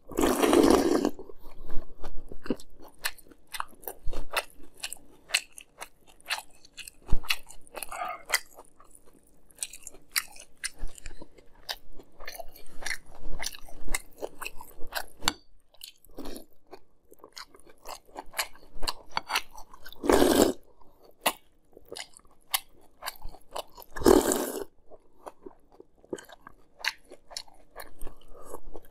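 A person chewing a mouthful of milk-soaked Fruity Pebbles crisp rice cereal close to the microphone, with many quick, crisp crunches. Three louder slurps from the spoon come right at the start and twice about two-thirds of the way through.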